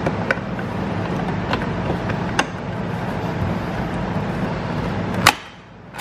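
Plastic clicks as the pull-handle trim of a BMW E90 rear door panel is pressed into place, a few light clicks and then one loud sharp snap about five seconds in as it clicks in. A steady low hum runs underneath and stops at the snap.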